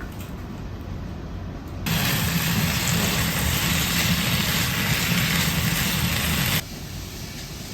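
Typhoon storm noise: a steady low rumble of wind, with a much louder hissing rush of wind and rain lasting about five seconds that starts and stops abruptly.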